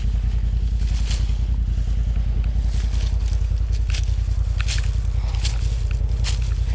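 An off-road side-by-side engine idling steadily with an even low pulse. Footsteps crunch and scrape through dry leaves and brush several times.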